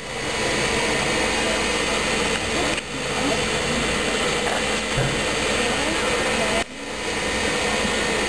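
Standing steam locomotives hissing steadily, a loud even rush of escaping steam that drops out briefly twice.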